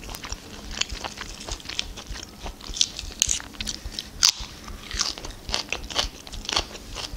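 A person chewing a mouthful of mushroom salad and biting into crisp lettuce leaves close to the microphone: irregular crunches and mouth clicks, the sharpest about four seconds in.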